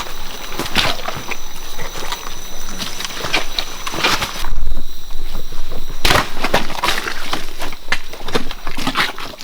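Leaves and branches rustling with scattered twig snaps, and a heavier thud about halfway through followed by a loud crack.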